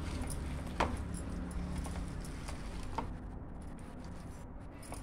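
Chicken pieces being mixed by hand into a spice marinade in a stainless steel bowl, with sharp clinks against the bowl about a second in and again about three seconds in, over a steady low hum.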